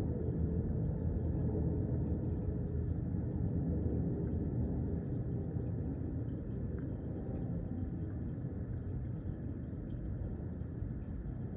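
Low jet rumble of an Airbus A380 flying past, slowly fading as it moves away.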